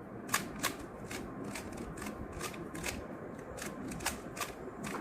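3x3 Rubik's cube layers being turned by hand while an algorithm is performed: a run of short plastic clicks, two or three a second.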